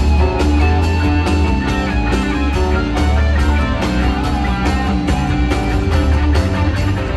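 Live rock band playing: electric guitar lines over heavy, sustained bass and a steady drum beat.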